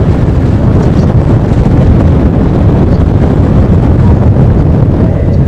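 Loud wind buffeting the microphone: a steady low rumble.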